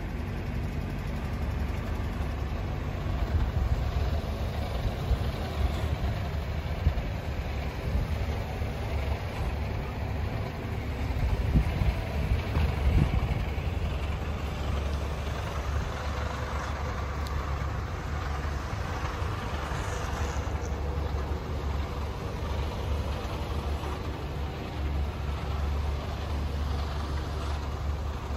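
Excavator's diesel engine idling, a steady low rumble that grows briefly louder about halfway through.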